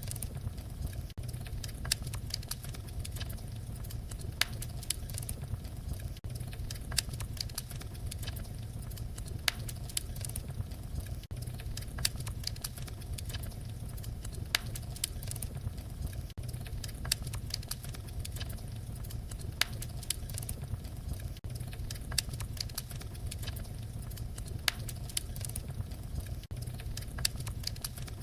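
Fire crackling: a steady low rumble of burning with frequent sharp pops and snaps at irregular intervals.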